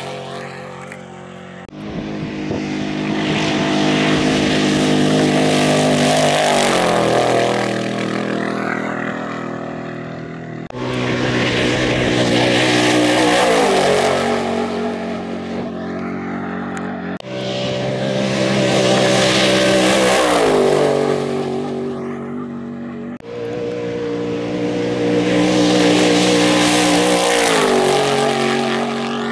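Trophy trucks racing past at full speed off-road, engines running hard. The engine note drops in pitch as each truck goes by, over a loud hiss. There are four passes, each starting abruptly.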